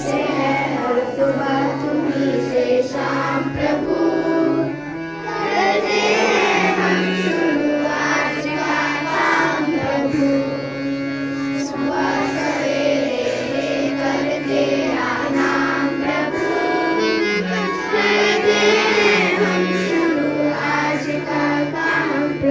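A school music band performing a song: voices singing over held low chords, with drum strokes keeping the beat.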